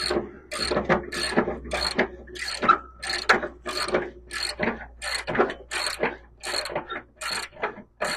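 Ratchet wrench with a 3/4-inch deep socket clicking in short, repeated strokes, about three a second, as it turns the adjuster nut on a zero-turn mower's deck-leveling rod to set the deck pitch.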